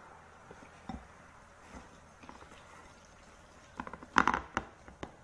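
A spatula mixing shredded chicken and tomato sauce in a large bowl: faint soft squishing, then a quick cluster of sharp knocks about four seconds in, with one more just before the end.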